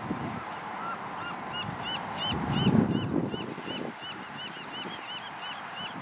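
Gulls calling in a steady series of short, arched cries, about three a second, beginning about a second and a half in. A low rumbling noise runs underneath and swells loudest about halfway through.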